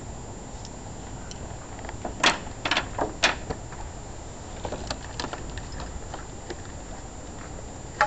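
A few sharp knocks and clatters about two seconds in, then lighter scattered ticks and taps.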